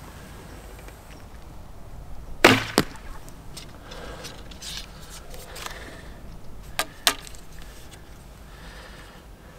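Black Hunter longbow shot about two and a half seconds in: a sharp thump of the string on release, and a moment later a second sharp hit as the arrow strikes the target. Two short sharp clicks follow about seven seconds in.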